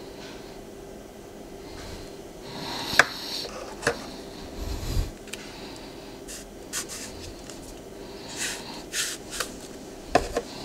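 Hands handling a stylus and its cardboard tube packaging: scattered sharp clicks and taps, one dull thump, and short scrapes of cardboard as the tube is opened and a cardboard insert slid out, over a faint steady hum.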